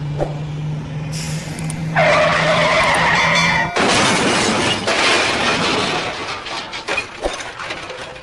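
Dubbed vehicle sound effects for a toy-truck crash. A steady engine hum is followed about two seconds in by a loud skid-like screech, then at about four seconds by a sudden loud crash noise that slowly trails away.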